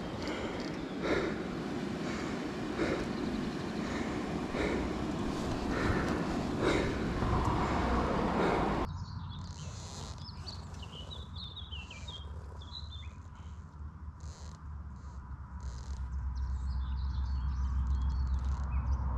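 Even rushing noise with soft regular knocks for about nine seconds. Then small birds chirp over a steady low hum that grows louder near the end.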